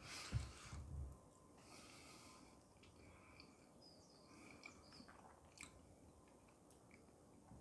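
Faint chewing of a sauced chicken thigh bite, with a short louder burst of noise in the first second as the bite is taken off the fork, then quiet, scattered small mouth clicks.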